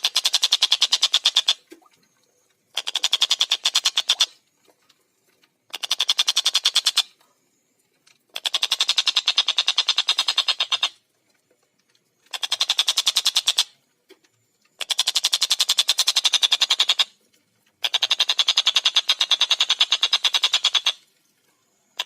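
Tengkek buto kingfisher calling in rapid chattering bursts, each a tight run of fast, evenly repeated high notes lasting one to three seconds, about seven bursts with short pauses between.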